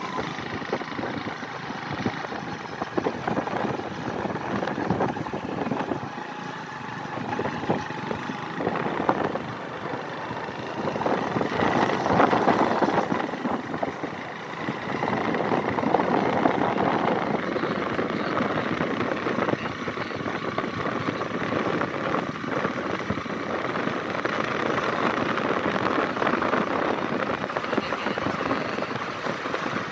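Small motorcycle engine running steadily while riding along a dirt track, with road and wind noise.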